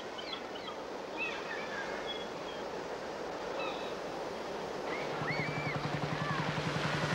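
Sea waves washing against the shore, with gulls crying now and then. A low, rapid throbbing joins about five seconds in.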